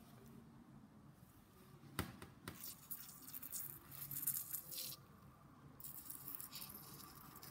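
Tartar being worked off a dog's teeth with a dental instrument: two small clicks about two seconds in, then a crackling hiss of metal on tooth. The hiss breaks off for a moment near the two-thirds mark, then starts again.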